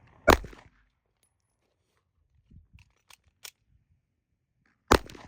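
Two sharp gunshots about four and a half seconds apart, each with a short echoing tail, and a few faint clicks between them.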